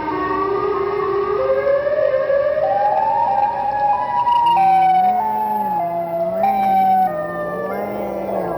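Siren Head creature sound effect: eerie siren-like tones that climb in pitch step by step for about four seconds, then change to a lower, see-sawing two-note wail.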